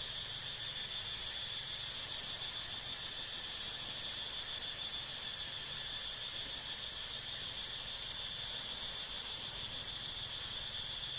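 A steady, high-pitched chorus of insects trilling with a fast, even pulse, unchanging throughout.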